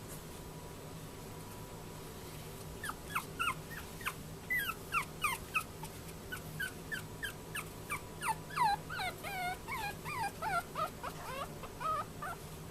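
Young Chihuahua puppy whimpering: after a quiet start, a rapid run of short, high-pitched whines, many falling or wavering in pitch, with faint clicks among them.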